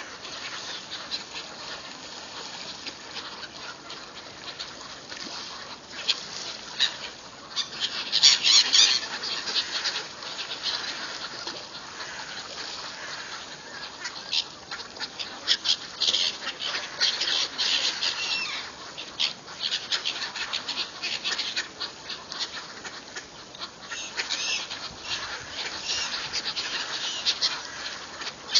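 A flock of gulls and mallard ducks calling over one another while they feed on the water, many short high calls overlapping, loudest in a burst about eight seconds in.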